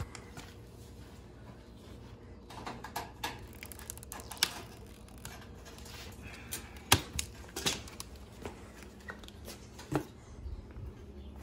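Handling noises of unpacking a pit bike from its shipping crate: scattered clicks, snips and plastic crinkling as zip ties are cut and plastic bags and wrapping are handled. The sharpest clicks come about seven seconds in and again about ten seconds in.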